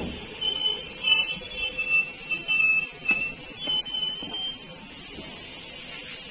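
Passing train squealing: broken, high-pitched tones that come and go for the first few seconds, then die away. A steady hiss is left, likely the rain.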